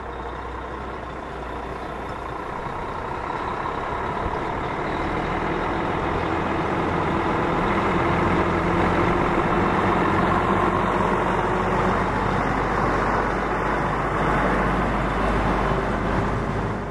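DAF XF105.460 truck's PACCAR MX straight-six diesel running under load as the tractor unit pulls its semi-trailer round a turn and drives toward the listener. The steady low rumble grows louder over the first eight seconds and stays loud as the trailer wheels roll close past near the end.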